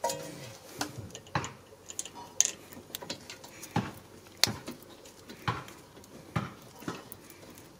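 Light metallic clicks and clinks, about eight at uneven intervals, as a rear brake caliper and its bolts are handled and fitted by hand.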